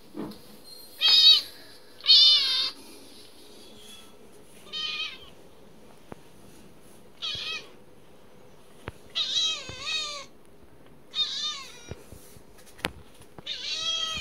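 Domestic cat meowing repeatedly: about seven short, high meows, each rising and falling in pitch, one to two seconds apart.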